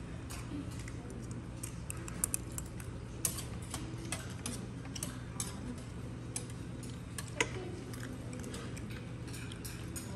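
Metal spoon and chopsticks clinking and tapping against stainless steel bowls while eating: scattered sharp clicks, a few louder ones, over a steady low hum.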